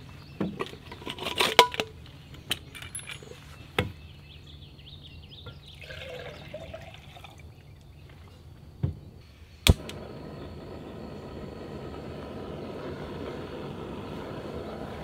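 Clicks and knocks of gear being handled, then a sharp click about ten seconds in, followed at once by a steady rushing hiss that keeps going: a small canister gas camp stove (Jetboil) being lit and burning.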